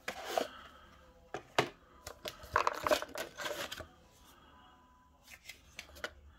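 Packaging being handled and opened by hand: a scattered run of rustles, tears and clicks, busiest around the middle, then a few light clicks near the end.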